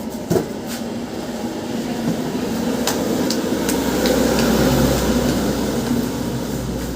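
High-pressure washer running: a steady mechanical hum that grows louder and deeper about halfway through, with a few sharp clicks.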